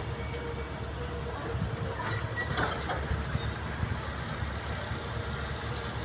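A heavy engine running steadily with a low rumble, with a few short metal clanks about two to three seconds in.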